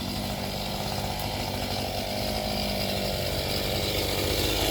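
Gasoline chainsaw running steadily, growing a little louder near the end.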